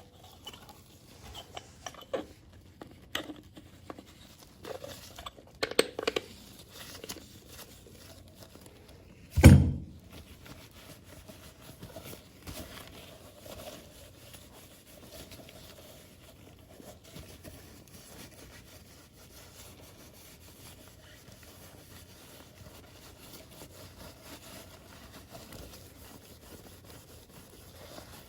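Small parts being handled on a workbench: scattered clicks and taps, then one loud knock about nine and a half seconds in, followed by faint rustling.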